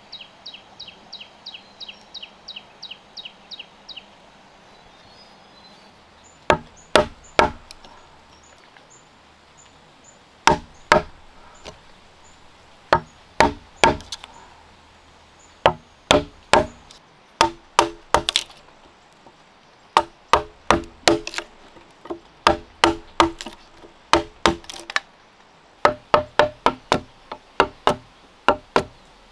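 Hammer blows driving a chisel into a squared wooden beam, cutting a joint. The sharp strikes come in quick runs of two to six with short pauses, starting about six seconds in.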